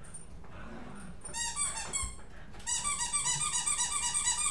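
Rubber squeaky dog toy being squeezed: a short burst of squeaks, then from about halfway a fast run of repeated squeaks, each swooping up and down in pitch.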